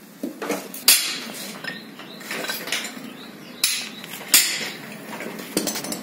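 Metal clinks and knocks of steel spanners and engine parts being handled and set down around a stripped engine block: a string of sharp separate strikes, the loudest about a second in and twice more past the middle.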